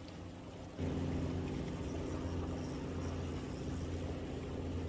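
A low, steady engine drone that starts suddenly about a second in and then holds an even pitch.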